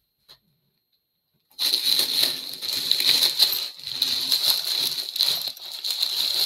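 Thin clear plastic bag crinkling as a bagged backpack is pulled at and handled, a dense crackle of many small clicks that starts about a second and a half in after a brief silence.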